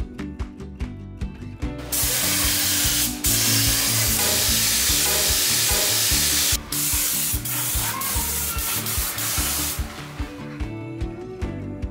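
Gravity-feed air spray gun hissing as it sprays paint onto a steel frame. One long spray starts about two seconds in and stops about halfway through, followed by several shorter spurts. Background music plays throughout.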